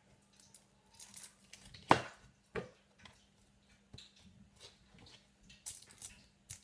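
Light clicks and taps of a fork and fingers working empanada dough on a kitchen counter, with one sharp knock about two seconds in and a smaller one just after. A faint steady hum lies underneath.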